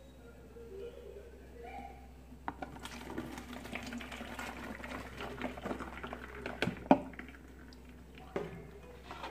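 Dark hibiscus zobo drink poured from a plastic jug through a mesh sieve into a plastic bucket, splashing and trickling, starting about two and a half seconds in. A sharp knock near seven seconds in.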